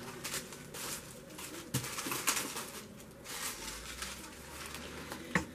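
Faint, irregular crinkling of clear plastic packaging as small herb bags are handled, with a few light clicks.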